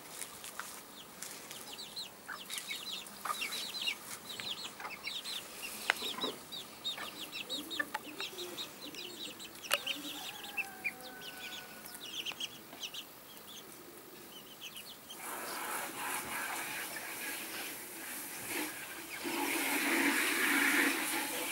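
Bantam chicks peeping in quick runs of short high cheeps, with a broody hen clucking among them. In the last few seconds a louder, rough noise covers them.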